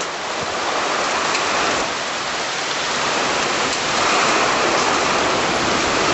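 Heavy rain pouring in a severe thunderstorm, with strong wind thrashing the trees: a steady rushing noise that swells a little about four seconds in.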